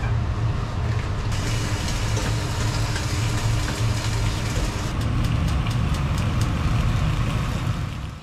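Thin slices of meat sizzling in a frying pan on a gas hob, the sizzle growing louder about a second in as more slices go in, over a steady low hum. A few light clicks, like tongs against the pan, about five to six seconds in.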